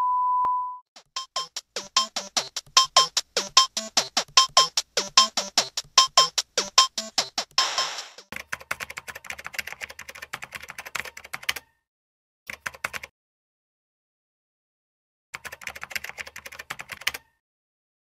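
A steady 1 kHz test tone sounds for under a second. Then comes a fast, even run of clicks with short pitched notes mixed in, like a music cue. After it, a computer keyboard is typed on in three bursts of rapid key clicks with pauses between them.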